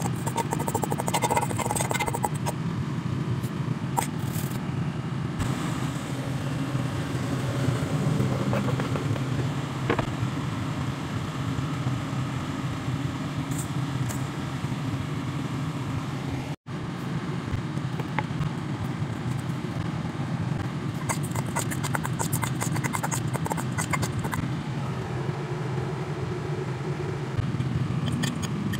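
Street ambience: a steady low rumble of traffic with scattered clicks and scrapes throughout, and a brief dropout a little past halfway.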